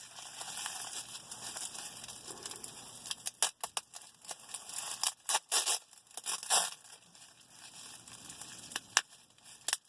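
Plastic packaging being handled and crinkled, a soft rustle with bursts of sharp crackles and clicks, busiest in the middle.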